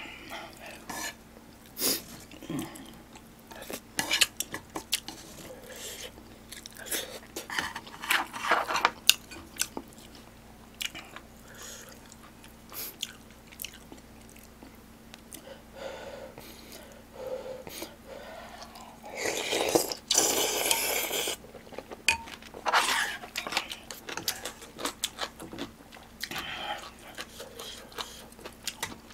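Close-miked eating sounds from a person eating spicy beef soup and side dishes: chewing, biting and wet mouth noises, with chopsticks and a spoon clicking against a stone pot and plates. A louder noisy stretch of about two seconds comes around twenty seconds in.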